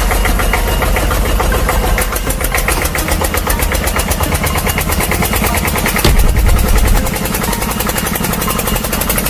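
Heavy diesel excavator engine sound running with a fast, even beat. It gets louder for about a second some six seconds in.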